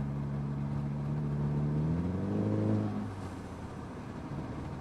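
Turbocharged four-cylinder engine of a Mercedes CLA250 pulling under boost, its pitch rising for about a second. About three seconds in the throttle closes, the engine note drops away, and a brief faint rush of air follows as the Forge blow-off valve vents.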